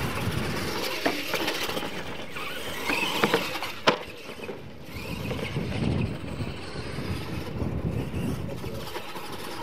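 Radio-controlled monster trucks racing on dirt: motors running under throttle and tyres scrabbling over the dirt track, with a few clicks and one sharp knock about four seconds in as a truck hits a ramp.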